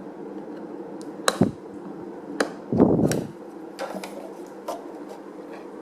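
Sharp plastic clicks and knocks from a Mijia car air purifier's casing being handled, with a heavier thump about three seconds in, over a steady low hum.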